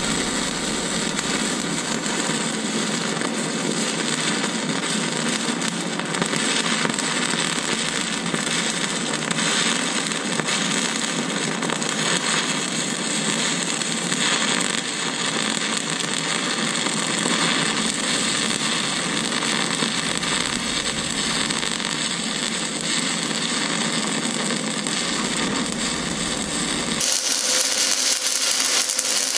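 Stick-welding arc crackling steadily as a 1/8-inch 7018 electrode lays a bead on steel. The crackle changes character near the end.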